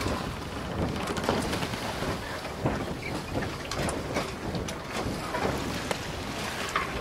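Wind on the microphone: a steady rushing noise with brief, irregular gusty flares.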